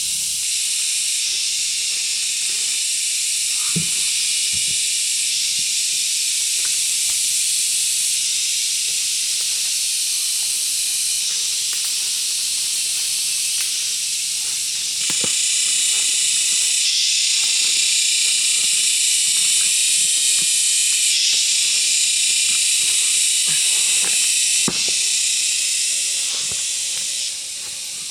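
A steady, high-pitched hiss with scattered soft clicks and knocks. The hiss gets louder in the middle part and drops again near the end.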